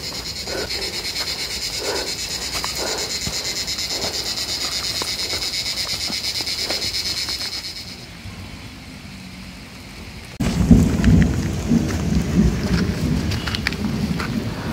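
A steady high-pitched insect drone with a fluttering pulse runs over rain in a wet forest. It falls away about eight seconds in, and a couple of seconds later a louder low rumble of thunder and rain comes in suddenly.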